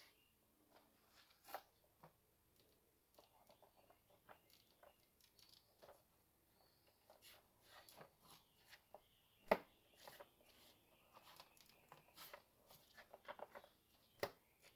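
Faint clicks, taps and rustling of a plastic engine cover being handled and pressed into place on the 3.6L V6, with one sharper click about two thirds of the way through.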